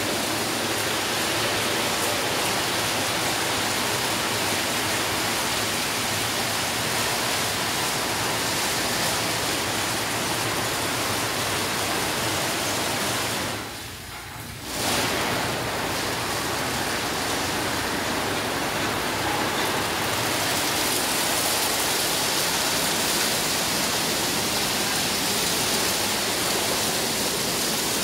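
Automatic rollover car wash machine running: its rotating cloth brushes and water spray make a steady rushing hiss, dipping briefly about halfway through.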